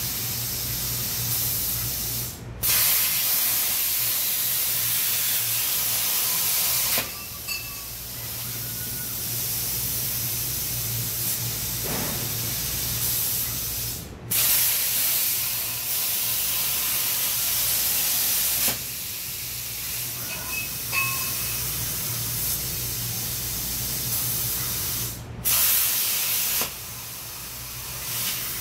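CNC plasma cutter torch cutting holes in thin 6061 aluminium sheet. A loud, steady hiss lasts several seconds per cut and starts abruptly three times: about two and a half seconds in, halfway through, and near the end. A quieter hiss fills the gaps between cuts, and a low steady hum runs underneath.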